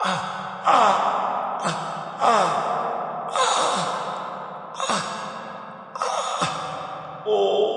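A person's short pained cries and gasps, about eight in a row, each dropping sharply in pitch and trailing off.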